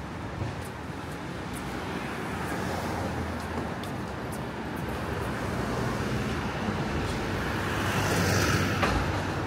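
Steady city road traffic noise with engine hum, swelling near the end as a small flatbed truck drives past close by.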